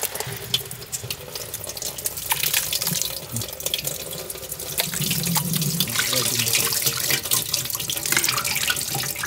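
Fresh orange juice and pulp pouring through a wire-mesh strainer and splashing into a large metal pot: a steady running-liquid sound with many small drips and splashes, growing louder about five seconds in.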